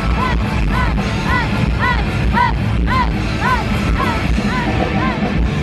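Live rock band playing loud through a concert PA: heavy drums and bass under a high line that bends up and back down about twice a second.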